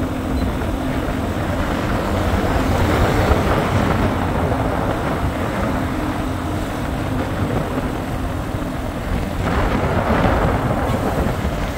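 Car driving through city streets: steady engine hum and road noise, with a swell of louder noise about ten seconds in.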